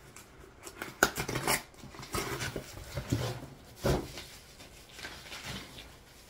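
Handling noises: a quick run of sharp clicks and rattles about a second in, then rustling and scraping, and a dull thump near the four-second mark.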